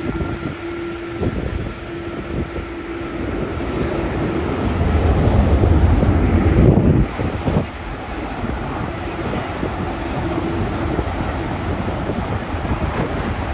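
Jet airliner's engines running as it passes, a steady noise with a faint whine that swells to its loudest about six to seven seconds in, then drops off suddenly.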